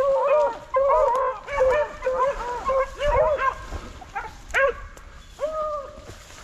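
Beagles baying in a running chase, a string of short, arching, repeated bays that overlap at first and thin out toward the end: the hounds giving voice on a rabbit's track.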